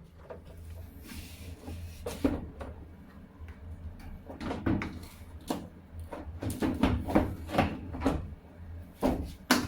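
Irregular knocks, clicks and taps of hard parts being handled, over a steady low hum.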